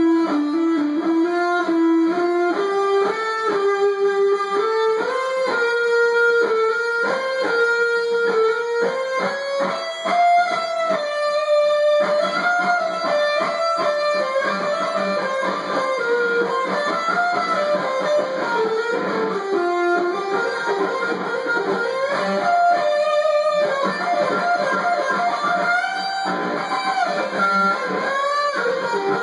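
Solid-body electric guitar playing a lead solo: held, sliding notes that climb in pitch through the first ten seconds, then wander up and down.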